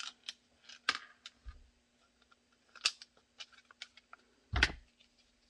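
Scattered small clicks and taps of a Kydex holster shell and its small hardware posts being handled, with a heavier knock a little after four and a half seconds.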